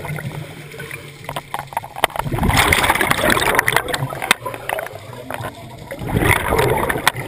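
Scuba diver breathing through a regulator underwater: two bursts of bubbling, gurgling exhaust about three and a half seconds apart, with scattered sharp clicks between.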